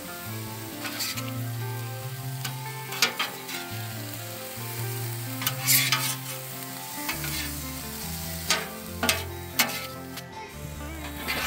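Beef strips, onions and bell peppers sizzling on a hot flat-top propane griddle, with a steady hiss. Two metal spatulas scrape and clack on the steel cooktop every second or two as the food is tossed.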